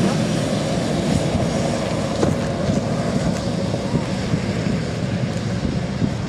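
Steady road and engine rumble of a moving vehicle, heard from inside.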